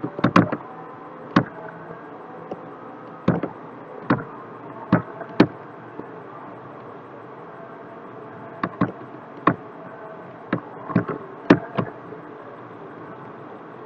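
Computer mouse clicking, a dozen or more sharp, irregular clicks, some in quick pairs, over a steady background hiss.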